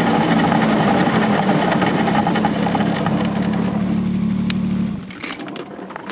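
Vehicle engine running loud and steady. It starts abruptly, then drops off sharply about five seconds in.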